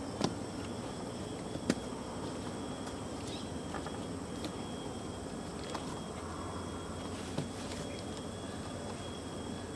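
Steady chorus of insects in thin high tones, with a few light knocks of footsteps on the slatted wooden floor.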